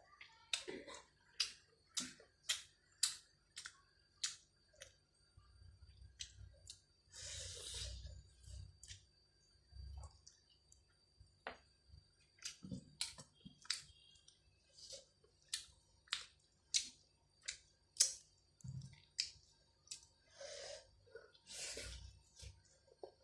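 Close-miked eating of rice and chicken: a run of wet mouth clicks and smacks while chewing, about one or two a second, with a couple of longer rustling bursts.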